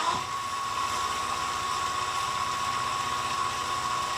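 Nova woodturning lathe running steadily with a constant whine, spinning the workpiece.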